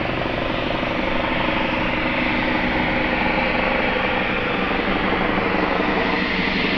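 Cessna 560 Citation Encore business jet's twin Pratt & Whitney Canada PW535A turbofan engines running steadily at taxi power: an even jet rush with several steady tones beneath it.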